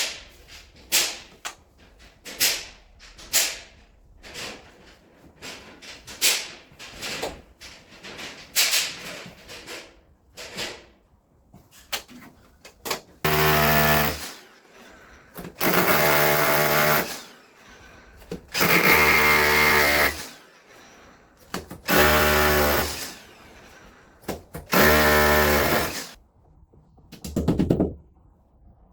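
A run of short, sharp strokes, then a power drill running in five bursts of about a second and a half each, with pauses between.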